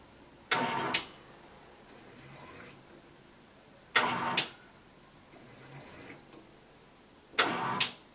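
FILLOGY Liquid S Auto S filling machine running its automatic cycle: three short bursts of machine noise about three and a half seconds apart, each starting and stopping with a click, one per filling cycle, with fainter machine sounds between them.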